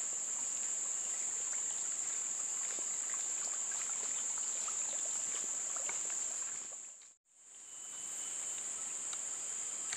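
Steady high-pitched insect chorus, a single continuous shrill tone. It fades out briefly about seven seconds in and then comes back.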